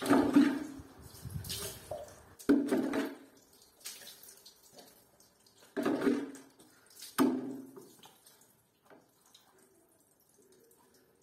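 Water splashing as small wet bath mats are rinsed and wrung out over a bucket on a tiled shower floor: four separate splashes, then only faint dripping for the last few seconds.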